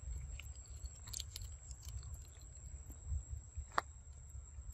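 A macaque chewing and biting into the flesh of a yellow fruit, with small wet clicks and smacks, and one sharp click about three-quarters of the way through. A low rumble runs underneath.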